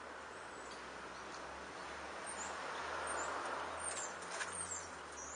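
Outdoor ambience: a steady rushing noise that swells to a peak about three seconds in and then eases off, with small birds chirping high and faint and a few light clicks.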